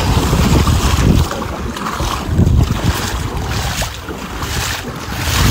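Wind buffeting the microphone in uneven gusts, with the rush of water, as a boat moves across floodwater.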